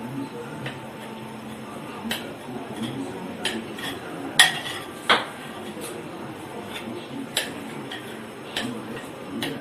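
Kitchen utensil clinking and scraping against a bowl as cake batter is poured out: irregular light knocks, the two loudest a little over four and five seconds in.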